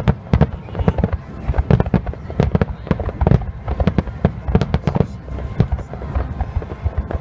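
Aerial fireworks bursting in a rapid, dense barrage, several loud bangs a second overlapping one another, as in a display's finale.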